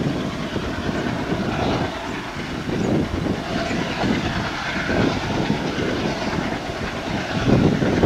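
Steady rumble of a train hauled by an ALCO WDG3A diesel locomotive running out of sight along the line, growing louder near the end.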